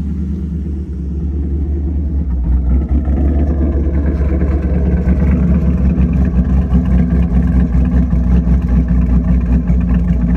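Camaro SS's cammed 6.2-litre LT1 V8 running with a freshly fitted LT2 intake manifold, with a lumpy, choppy note that gets louder about two and a half seconds in. The engine has an air leak at the new intake.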